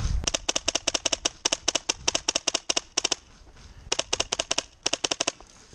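Airsoft gun firing rapid shots, about eight a second: a long string of about three seconds, then two short bursts.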